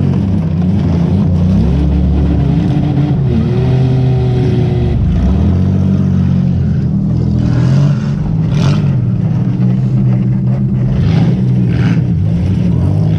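Demolition-derby car's engine running loud, heard from inside the cabin, its pitch rising and falling a few times early on. In the second half come several short, harsh noisy bursts.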